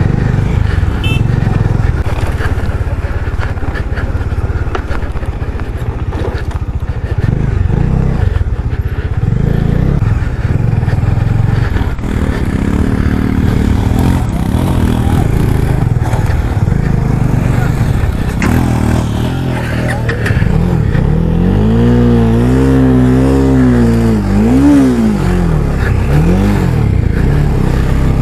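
Motorcycle engine running on a dirt trail under off-road riding. Near the end it revs up and down several times in quick succession.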